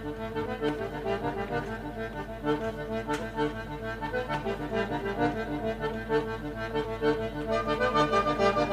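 Instrumental song intro led by an accordion-type squeezebox playing pulsing chords in a steady rhythm. It grows louder near the end.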